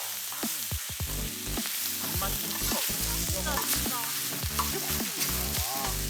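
Food sizzling and frying in a hot pan, with background music over it.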